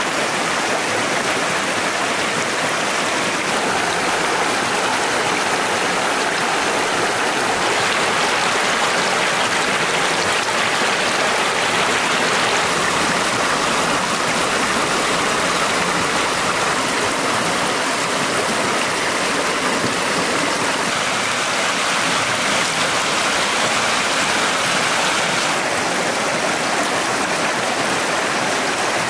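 Shallow mountain stream rushing and splashing over rocks, a steady loud flow of water.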